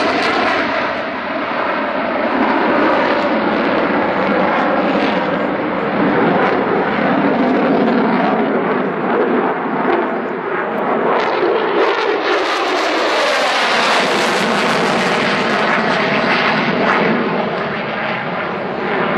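Loud, continuous jet noise from an F-16 fighter's Pratt & Whitney F100 turbofan as the jet flies its display overhead, with the pitch of the noise sliding as it passes. The noise grows harsher about twelve seconds in and eases toward the end.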